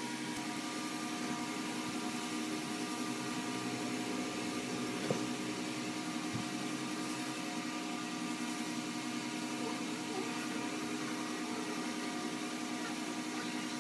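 Steady machine hum with a hiss over it, unchanging throughout, with a couple of faint ticks about five and six seconds in.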